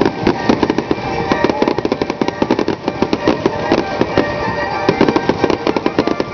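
Aerial fireworks bursting in a rapid string of bangs and crackles, many per second, over the show's music.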